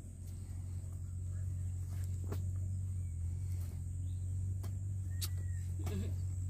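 A steady low hum with a thin, steady high-pitched whine over it, broken by a handful of separate sharp knocks and clicks.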